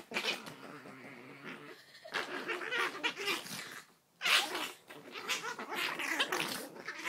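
Two Chihuahuas play-fighting: low, wavering growls, broken by a few sharp bursts of scuffling noise.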